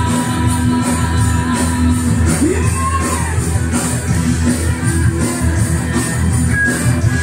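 Live band playing: a singer over electric guitars and keyboard with a steady beat, holding a long note through the first two seconds.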